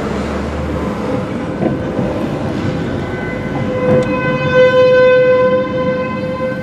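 Fulton T-128 outdoor warning siren sounding a steady tone for a tornado warning, growing louder about four seconds in. It is heard from inside a car.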